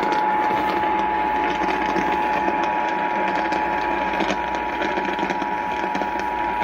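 Emergency Alert System two-tone attention signal: a steady, unbroken dual tone relayed over a broadcast radio station, with a hiss of radio noise underneath. It marks the start of a relayed severe thunderstorm warning.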